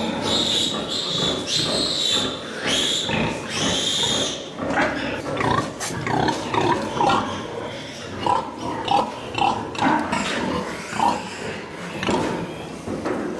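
Pigs squealing loudly and high-pitched for the first few seconds, then a run of short, repeated grunts, about two a second.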